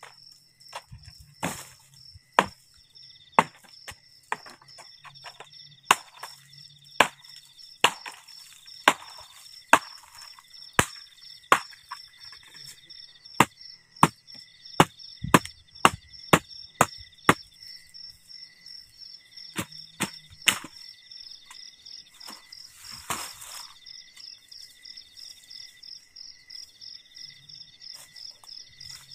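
A blade chopping into a dead wooden branch: sharp chops about once a second, coming faster for a few seconds midway and stopping about twenty seconds in, followed by a brief rustle. Insects chirr throughout in a high, pulsing trill.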